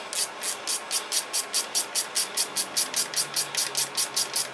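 Small hand ratchet with a socket worked in quick short back-and-forth swings, its pawl clicking in a fast even rhythm of about five bursts a second, as an oil pump bolt is run down before torquing.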